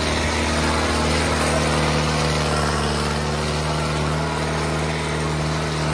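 New Holland 5630 tractor's diesel engine running steadily as it pulls through dry, loose soil.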